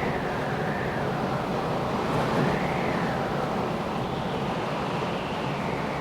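Rainstorm sound effect: a steady rush of heavy rain, with wind whistling in rising and falling gusts every two to three seconds.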